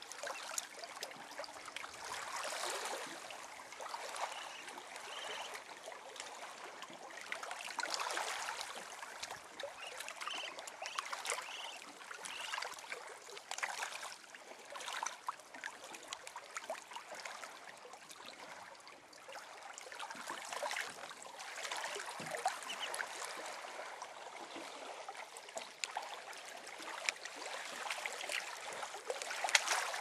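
Water trickling among shoreline rocks, with scattered short clicks through it.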